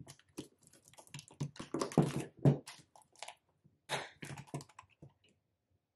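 Irregular clicks, taps and plastic rustling as a clear plastic cash-envelope binder is handled and slid across a table.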